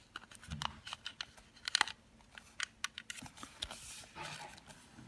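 Small plastic parts of an inverted umbrella's mechanism being handled and fitted by hand: a string of light clicks and rattles, the loudest clicks a little under two seconds in.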